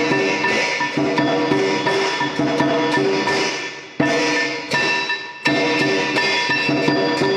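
Background music carried by percussion: loud strikes that ring and fade, one about four seconds in and another a second and a half later, with quicker, lighter clicks and held ringing tones between them.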